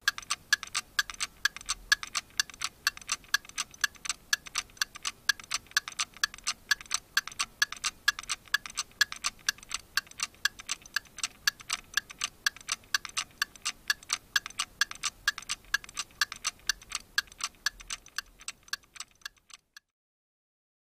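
Clock ticking steadily, several even ticks a second, stopping near the end.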